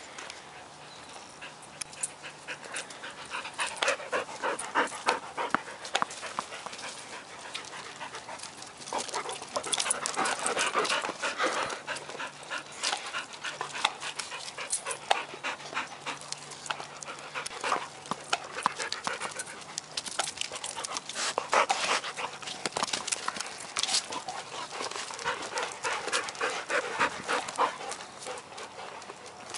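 Dogs panting in quick, rapid breaths after running, coming in several louder bouts.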